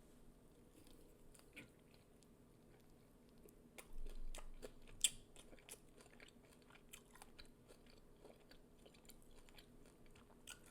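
Faint close-up chewing and biting of a chicken wing, with scattered wet clicks and a louder bite about four to five seconds in.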